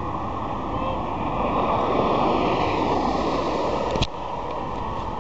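Rushing noise of a vehicle passing close by, swelling to a peak and then cut off by a sharp click about four seconds in, with wind on the microphone.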